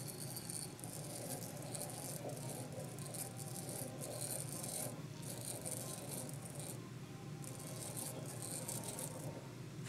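A threading die in a hand die stock being turned by hand onto a brass stud, scraping and rattling in short irregular spells as the handle is worked. The die is cutting a clean thread.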